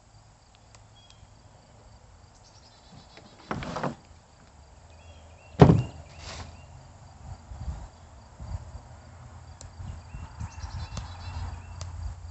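Parts being handled and rummaged through: a short scraping rustle, then a sharp knock about five and a half seconds in with a second, lighter one just after, and low handling noise toward the end. Crickets chirp faintly in the background.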